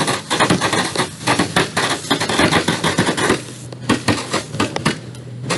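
Firecrackers going off in rapid succession: a dense crackle of many sharp pops that thins to sparser pops a little past the middle.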